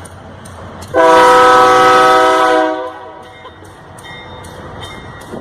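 Train horn sounded once for under two seconds, starting about a second in: a loud chord of several steady tones, over the low rumble of a passing train.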